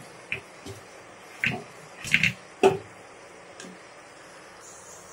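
A handful of short knocks and soft thuds as raw chicken pieces go into a non-stick kadhai of masala and are pushed about with a plastic spoon. The loudest knock comes a little before the three-second mark, over a faint steady hiss.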